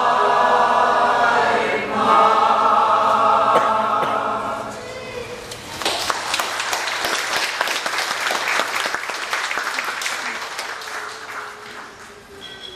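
Mixed choir singing the closing chords of a song, with a short break for breath about two seconds in, ending about five seconds in. Audience applause follows and tapers off near the end.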